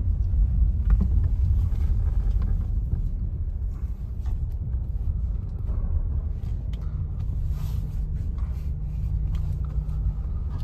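Vehicle driving along a dirt track: a steady low rumble of engine and tyres with a few light knocks, and a steady low hum coming in about two-thirds of the way through.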